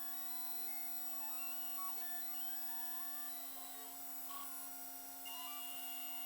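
Stepper motors of a custom-built 5-axis CNC machine whining in tones that keep stepping up and down in pitch as the axes move, over a steady hum. A short rustle comes about four seconds in.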